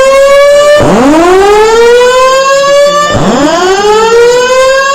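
Voice-evacuation fire alarm sounding its whoop tone: a loud siren note that rises in pitch over about two seconds, cuts off and starts again from low, twice in a row. This is the evacuation signal that alternates with the recorded order to leave the building.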